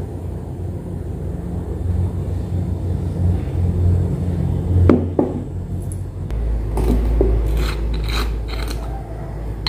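A small bottle and its white plastic screw cap being handled: two sharp clicks a little under five seconds in, then a run of scraping and clicking as the cap is twisted open, over a steady low hum.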